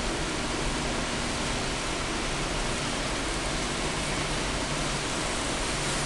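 Steady rushing noise of wind and sea aboard a ship at sea, with a faint low hum beneath it.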